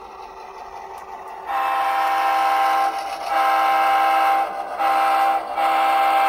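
Sound-equipped HO-scale GP7u model diesel locomotive: a faint diesel engine idle, then about a second and a half in the horn sounds as a chord in four blasts, long, long, short, long, the grade-crossing signal.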